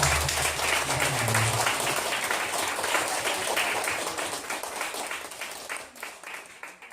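Audience applauding at the end of a live band song, over the last low note of the music, which dies away in the first two seconds. The clapping thins out and fades near the end.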